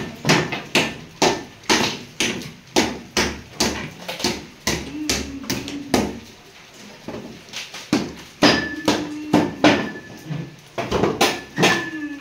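Repeated hammer blows, about two a second, some of them leaving a short metallic ring.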